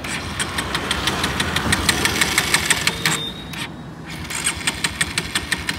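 Bajaj Pulsar 150's electric starter cranking its single-cylinder engine, a rapid even ticking for about three seconds, then after a short pause cranking again, without the engine catching: the fuel tank has run dry.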